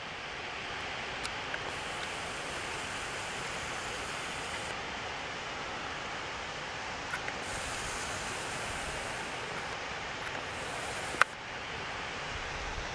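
Steady rushing of distant mountain waterfalls, with a single sharp click about eleven seconds in.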